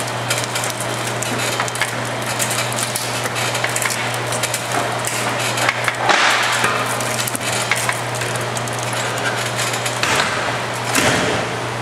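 Pallet nail clincher machine running: a steady low hum under a continuous dense rattling clatter of its drive and rollers. The clatter grows louder about six seconds in and again near the end.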